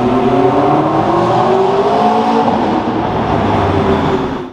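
McLaren Spider's twin-turbo V8 accelerating away, its note rising steadily in one long pull. The sound cuts off near the end.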